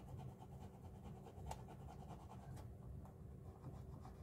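Faint scratching of a dry transfer being rubbed onto the side of an O scale model boxcar, with a couple of light ticks, over a steady low hum.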